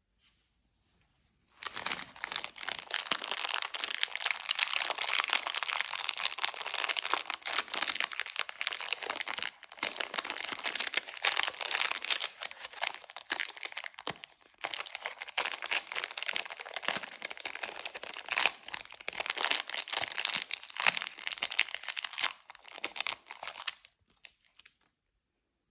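Candy wrappers crinkling and tearing as sweets are unwrapped. The rustling starts about a second and a half in, pauses briefly midway, and stops shortly before the end.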